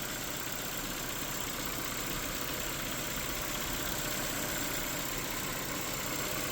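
2015 Ford Fiesta's 1.6-litre four-cylinder engine idling steadily, with a freshly fitted water pump, timing belt and tensioner. The stable idle is the sign that the timing is correct.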